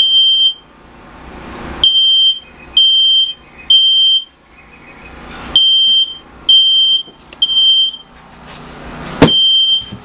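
Smoke detector alarm sounding the standard three-beep evacuation pattern, set off by the smoke of the burning furniture: groups of three loud, high-pitched beeps about half a second each, separated by short pauses, over a rushing noise that swells between the groups. A single sharp knock comes near the end.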